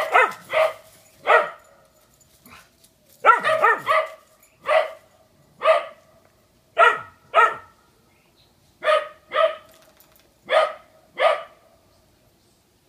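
A small dog barking repeatedly in short, high-pitched barks, singly and in quick pairs, about one a second, stopping near the end.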